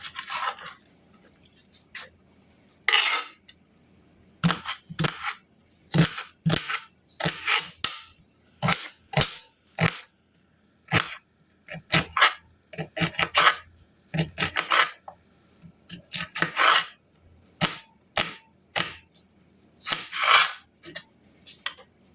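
Kitchen knife dicing onion on a cutting board: irregular sharp chops, roughly one or two a second.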